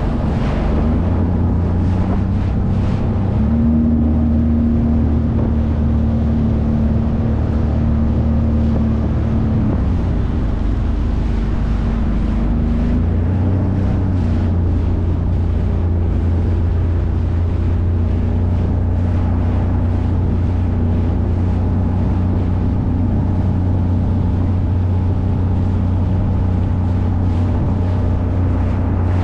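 Jet ski engine running steadily under way, its note shifting about ten seconds in as the throttle changes, with some wind on the microphone.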